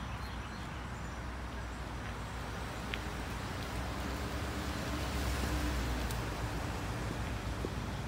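Road traffic going by: a steady low rumble that swells a little about five seconds in, as a vehicle passes.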